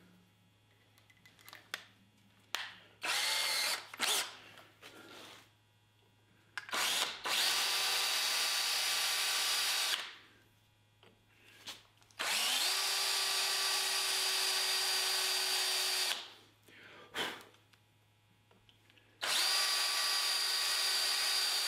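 DeWalt cordless drill with a countersink bit cutting the screw hole in a rifle butt plate. It runs in bursts: a few short blips, then three runs of several seconds each. In each run the motor whine rises as it spins up, then holds steady.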